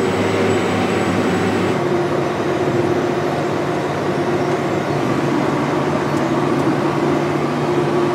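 Tractor running steadily while pulling a planter, heard from inside the cab: an even drone with a steady whine over it.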